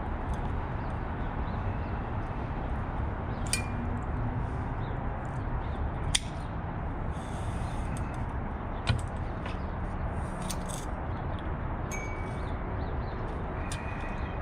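Bicycle cables and hand tools being handled: scattered sharp metallic clicks, the loudest two about six and nine seconds in, and a few brief faint pings, over a steady low background hum.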